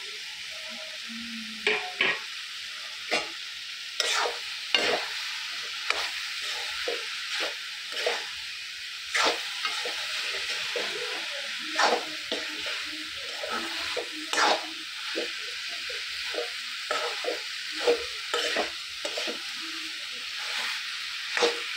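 Freshly added jackfruit pieces sizzling in hot oil and masala in a metal kadhai, with a metal spatula scraping and clinking against the pan as they are stirred, in irregular strokes every second or so.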